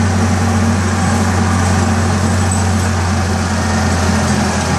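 Chance Rides miniature train locomotive's engine running at a steady pace as the train rolls along, a constant low drone.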